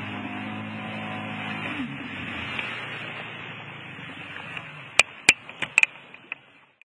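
Stand-up jet ski engine running, then cut off about two seconds in with its pitch falling away, leaving water splashing and rushing along the hull as the craft coasts and slows. Several sharp clicks near the end.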